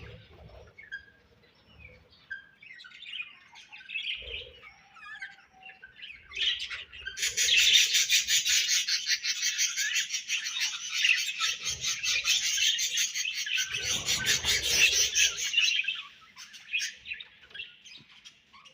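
Budgerigars chirping: scattered short chirps at first, then about seven seconds in a loud, dense chatter of rapid warbles and clicks that runs for some nine seconds before thinning back to sparse calls.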